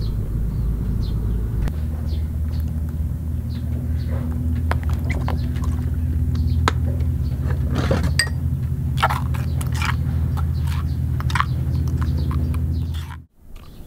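A steady low hum made of several even low tones, with scattered small clicks and ticks over it; it cuts off abruptly near the end.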